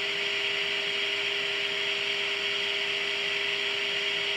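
Steady static hiss from a tube AM radio's speaker during alignment, with a faint steady low tone running under it.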